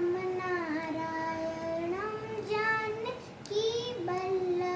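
A young girl singing solo without accompaniment, holding long notes that slide up and down in pitch.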